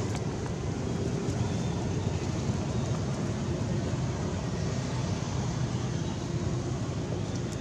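Steady low rumbling outdoor background noise, with no monkey calls heard.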